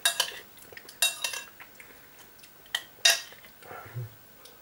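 A spoon clinking against a dish as someone eats soup: several separate sharp clinks, some ringing briefly, with a small cluster about a second in and two more near three seconds.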